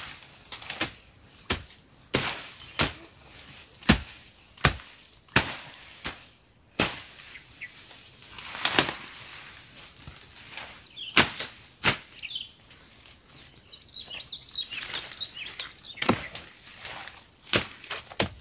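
Machete slashing through undergrowth: sharp, irregular chopping strikes about one a second, sparser for a few seconds in the middle. A steady high drone of insects runs underneath.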